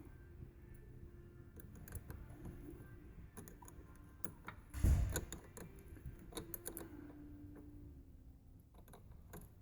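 Hand tools clicking and tapping on metal while battery cables are reconnected, with one louder knock about five seconds in.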